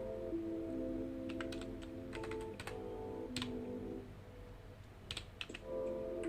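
Typing on a computer keyboard: keystrokes come in irregular short clusters, a run of clicks in the first half and a few more about five seconds in. Soft background music with long held notes plays underneath, dropping away briefly just before the second cluster.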